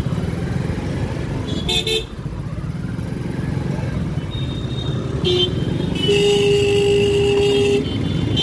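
Busy street traffic heard from a moving two-wheeler: a steady low engine and road rumble, with vehicle horns tooting briefly about two seconds in and again about five seconds in, then one long horn blast held for nearly two seconds, the loudest sound here.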